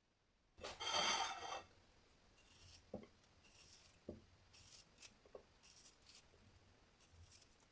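A brief loud rustling scrape, then scattered light taps and short soft rubbing sounds of household objects being handled.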